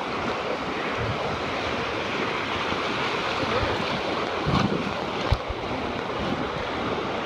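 Whitewater of river rapids rushing steadily around a raft, with wind buffeting the microphone. A single knock sounds about five seconds in.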